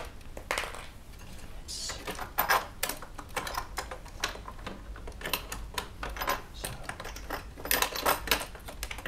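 Irregular small clicks, taps and knocks of hands fitting fasteners and parts to a 3D printer's MDF-panelled frame with aluminium extrusion edges, with a brief scrape about two seconds in. The nuts and bolts are being put on loosely, not tightened.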